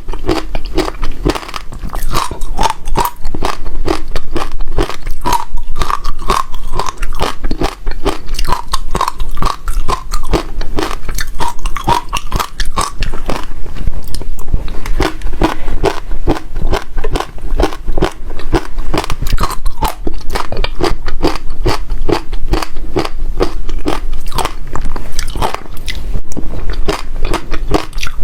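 Passion fruit seeds crunched between the teeth: a dense, continuous run of rapid, crisp crunches.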